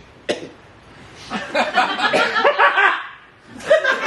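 A man laughing maniacally, a burst of exaggerated stage laughter, after a short click.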